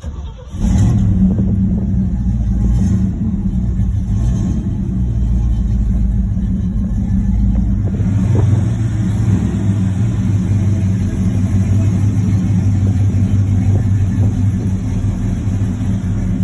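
A 1968 Pontiac GTO's 400 cubic-inch V8 comes in suddenly about half a second in, with a few short throttle blips over the first few seconds, then runs at a steady rumbling idle.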